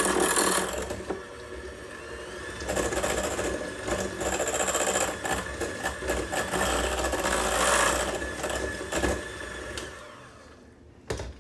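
Electric mixer running, its beaters churning cream cheese and buffalo wing sauce. The motor swells and eases several times, then winds down and stops shortly before the end, followed by a sharp click.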